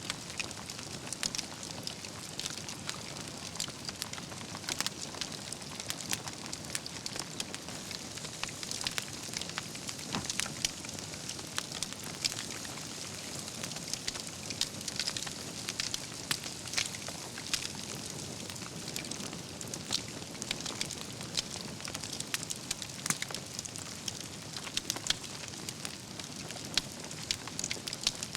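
Wood fire burning steadily, with a soft hiss under frequent irregular crackles and pops from the burning logs.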